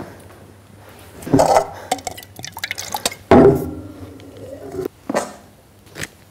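A clear drinking glass with water in it is picked up, drunk from and set down on a table: liquid sounds and knocks of glass on a hard surface. The loudest knock comes about three seconds in and is followed by a brief ringing.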